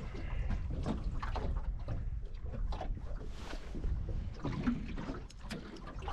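Low wind rumble on the microphone, with scattered small clicks and knocks from handling or water.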